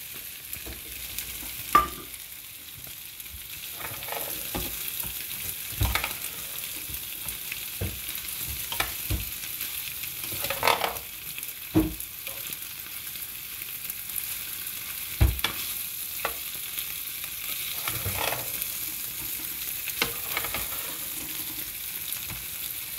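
Diced boiled potatoes frying in a pan with a steady high sizzle, while a metal spatula stirs and turns them, scraping and knocking against the pan now and then.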